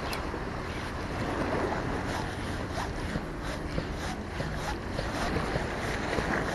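Wind on the microphone over the wash of the sea, with a quick swish of a spinning rod being cast just at the start. From about two seconds in comes a faint regular ticking, about three a second, as the spinning reel is wound in.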